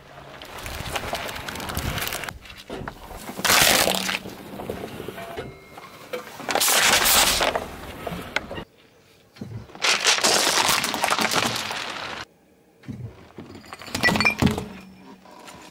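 A car tyre rolling over objects on asphalt and crushing them, in several separate bursts of crunching and cracking with quiet gaps between. Plastic soda bottles burst under the wheel, and near the end sticks of sidewalk chalk snap.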